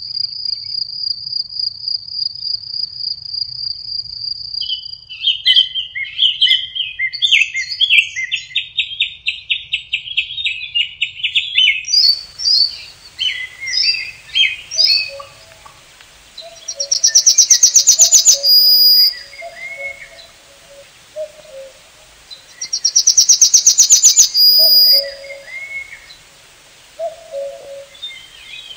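Songbirds singing in open country. The first few seconds hold a high, even, fast-pulsed trill; after that come varied chirping phrases, and two loud trilled songs of about two seconds each in the second half, with low short calls underneath.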